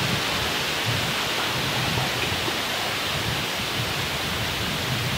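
Steady wind noise: wind blowing through the woods with low, uneven buffeting on the microphone.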